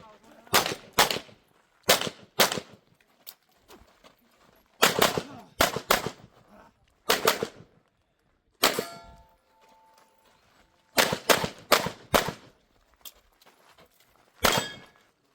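Pistol shots fired during a USPSA stage, mostly in quick pairs with short pauses between strings. About nine seconds in, a shot is followed by a brief metallic ring.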